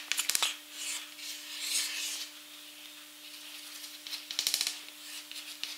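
Chalk scratching and tapping on a chalkboard as a diagram is drawn: quick runs of short taps at the start and again about four and a half seconds in, with longer scratchy strokes between.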